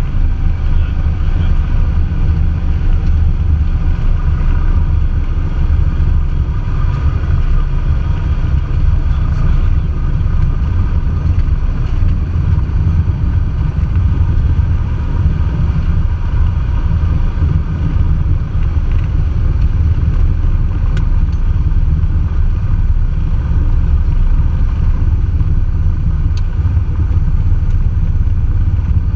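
Cessna 172's piston engine and propeller running steadily at low power for the landing, heard from inside the cabin as a loud, even drone.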